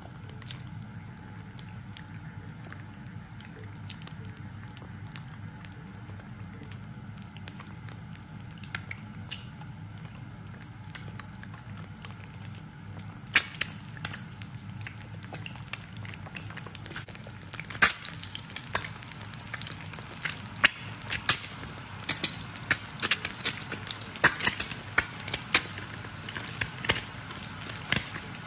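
Eggs frying in oil in a nonstick frying pan: a few faint pops at first, then from about halfway on, frequent sharp crackles and pops of spitting oil over a low steady hum.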